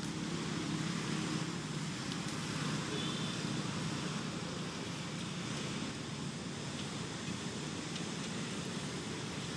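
Steady outdoor background noise with a low rumble, and one short, faint high-pitched call about three seconds in.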